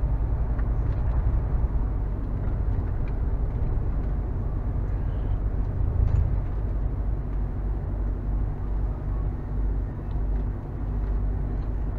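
Lorry's diesel engine and road noise heard inside the cab while driving, a steady low drone.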